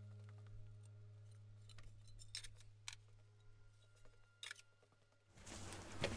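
Faint background music fading out on a held low chord, with a few faint sharp clicks over it. Near the end the music gives way to a steady hiss of open-air room noise.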